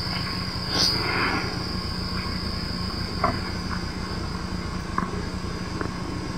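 Night insects trilling steadily at one high pitch over a constant low hum, the trill swelling briefly about a second in, with a few faint clicks.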